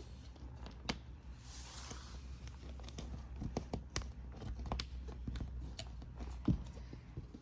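Scattered small clicks and taps with a brief tearing rustle about 1.5 seconds in, from handling and fixing small adhesive cord clips, over a steady low hum.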